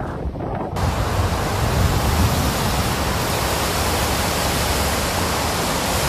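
Wind buffeting the microphone, then, under a second in, an abrupt switch to the steady, full rushing of a swollen river in flood.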